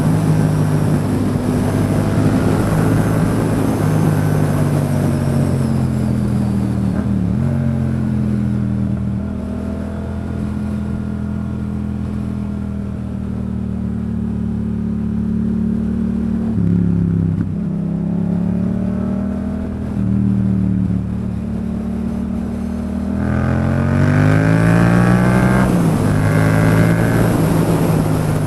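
Yamaha MT-07's parallel-twin engine under way on the road, mostly holding steady revs with a few dips and pitch changes. Near the end it accelerates hard, the revs rising in steps through upshifts.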